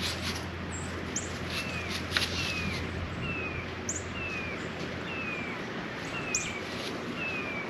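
Birds chirping: one repeats a short, falling whistled note over and over, a little more than once a second, among scattered higher chirps, over a steady low hum of background noise.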